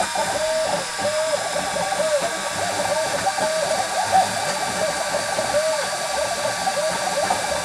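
Stepper motors of a LongMill CNC machine driving a diode laser head through an engraving job, whining in short rising and falling notes as the head traces lettering, over a steady hum.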